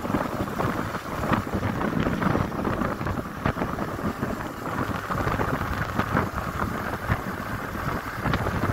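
Wind buffeting and rumbling on a riding camera's microphone, with the low rumble of a motorcycle underway beneath it and small crackles throughout.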